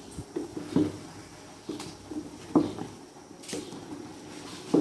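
A wooden spatula stirs chicken pieces in an aluminium pot of boiling water, during parboiling. There are soft knocks and sloshes roughly once a second.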